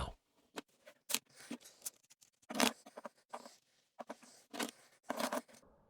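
Lego stud shooter firing: a scattered series of light plastic clicks, with a few louder clatters of studs striking and knocking over small Lego figures.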